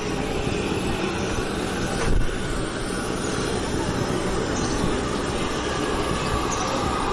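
Busy street ambience: a steady rumble of traffic noise, with a brief louder knock about two seconds in.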